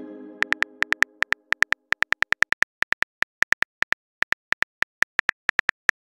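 Phone keyboard typing clicks from a texting-story app as a message is typed, short pitched taps at about seven a second in an uneven rhythm. A chime fades out over the first second or so before the typing begins.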